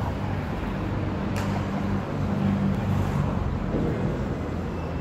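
City street traffic: a steady low rumble with a vehicle engine's hum, swelling slightly in the middle. A single sharp click about a second and a half in.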